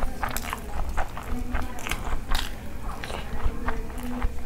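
Close-miked eating of rice and curry by hand: wet chewing and mouth smacks, with fingers mixing and scraping rice across a steel plate. A quick, irregular run of short clicks and squelches.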